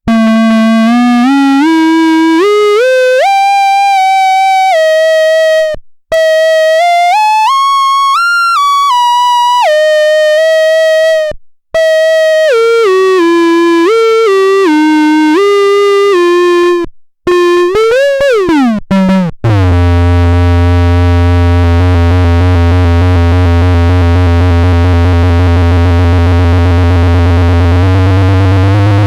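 Synthesized electronic tones from a COSMOTON IDS2: a single bright, buzzy note steps and slides up and down in pitch, cutting out briefly a few times. After a quick wobbling downward sweep, it settles into a loud, steady, deep droning chord.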